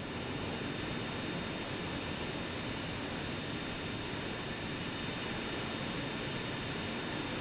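Jet aircraft engine running steadily: an even rush with a thin high whine above it.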